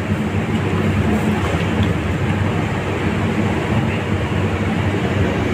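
A loud, steady machine drone with a low hum underneath.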